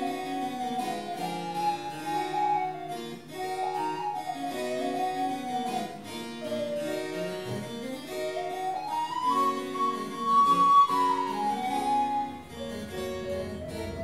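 Early-music ensemble of viols and recorders playing a slow piece. A melody line runs over sustained lower parts and climbs to a high held note about two-thirds of the way through.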